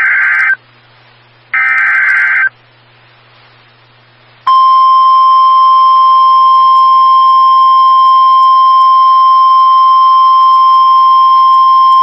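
Emergency Alert System signal on NOAA Weather Radio: the end of one burst and then a second one-second burst of the warbling digital header tones, a pause of about two seconds, then the steady, high warning alarm tone starting about four seconds in and holding, announcing a severe thunderstorm warning.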